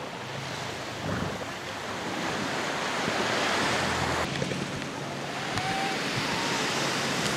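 Surf washing onto a beach: a steady rush of breaking waves that swells for a few seconds, changes abruptly a little after four seconds in, and swells again near the end.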